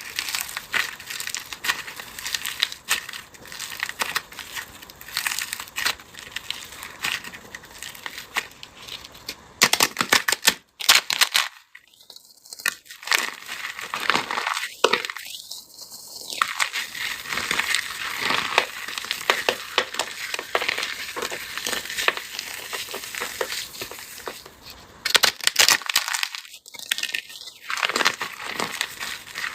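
Dry, brittle crafting material, of the soap, clay or chalk kind these crushing videos use, being crushed and crumbled: continuous dense crackling and crunching. There are louder flurries about ten seconds in and again near the end, and a few short pauses.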